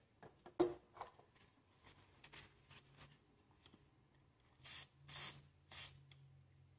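WD-40 aerosol can spraying in three short hisses of penetrating oil onto a stuck screw, after a few light handling knocks.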